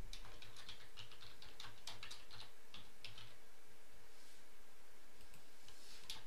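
Computer keyboard being typed on: a quick run of key clicks over the first three seconds, then a few scattered clicks, over a faint steady hum.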